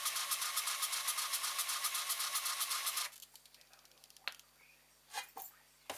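Rapid, even mechanical ticking that cuts off abruptly about three seconds in, followed by a few separate clicks and knocks.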